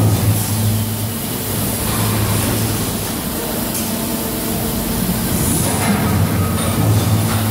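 Automatic spoon-packing machine running with a steady electrical hum. A few short hisses, typical of compressed air from pneumatic actuators, cut in over it every second or two.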